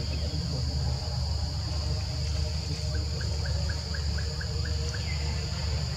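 Steady, high-pitched insect drone, like crickets or cicadas, over a low rumble. About three seconds in there is a quick run of about nine short chirps, some five a second.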